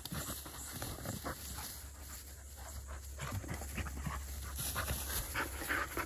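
Two Labrador retriever puppies play-fighting: panting and scuffling in the grass in short, irregular bursts, getting louder in the second half.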